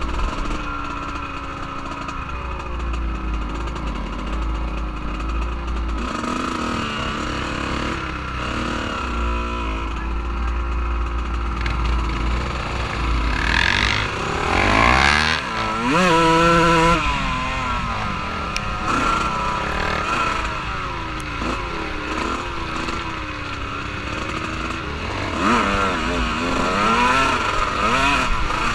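Off-road vehicle engine running while riding, its pitch wavering as the throttle is worked. It revs up sharply about halfway through and again near the end.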